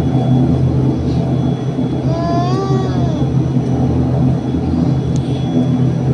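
Steady low drone of an airliner cabin in flight, jet engine and airflow noise heard from a passenger seat. A brief high, gliding voice rises over it about two seconds in.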